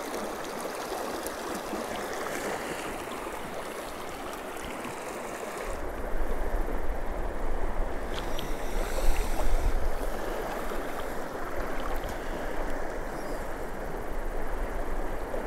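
A clear, shallow river flowing over a rocky bed, a steady rush of water. About six seconds in it becomes louder and closer, with a low rumble underneath.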